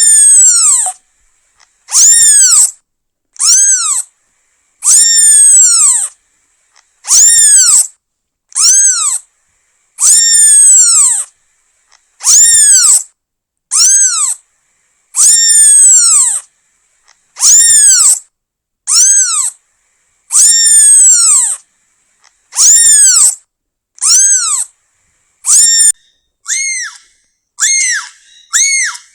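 A newborn kitten meowing over and over, calling for its mother. The loud, high cries rise and fall in pitch, about one every second and a half, and turn shorter and slightly higher near the end.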